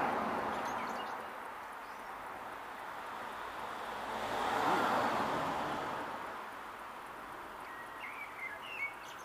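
Outdoor garden ambience: a steady rushing noise that swells and fades around the middle, and a few short bird chirps near the end.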